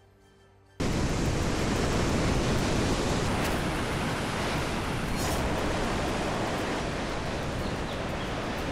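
Floodwater rushing in a torrent: a steady, loud, even rush of water that starts suddenly about a second in.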